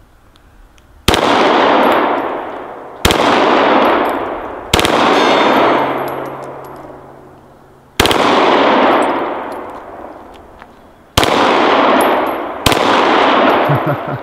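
Full-auto Glock 17 9mm pistol with a selector switch firing six short bursts, one every one to three seconds, each trailing off in a long echo. A steel gong target hums for a few seconds after one of them.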